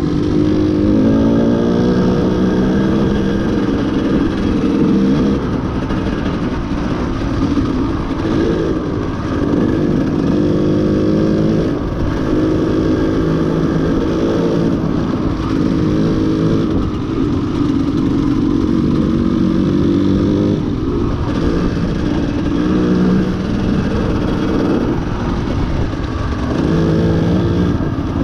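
Off-road motorcycle engine running hard as the bike is ridden. Its pitch repeatedly climbs and then drops as it accelerates through the gears and shifts.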